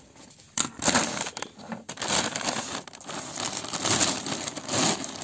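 Plastic poly mailer bag crinkling and rustling as hands grab and pull at it to open it, starting about a second in and continuing in a dense run of crackles.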